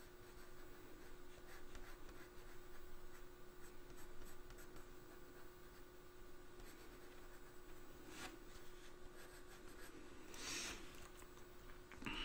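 Coloured pencil scratching lightly on drawing paper in short strokes, with a couple of louder rubs near the end.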